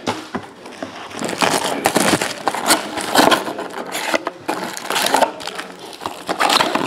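Clear plastic wrapping and foil trading-card packs crinkling and rustling in irregular bursts as they are handled and stacked.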